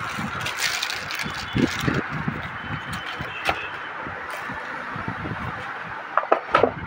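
Plastic bag crinkling and rustling while a new smartphone is handled and slid out of it, with scattered clicks from the cardboard box. Several sharp taps come near the end, over a steady background hum.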